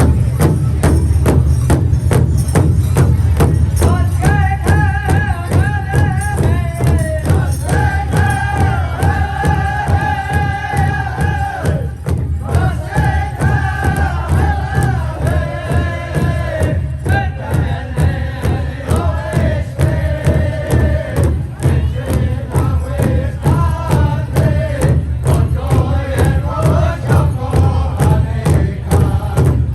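Powwow drum group: a large drum struck in a steady, fast beat, with high-pitched singing over it from about four seconds in.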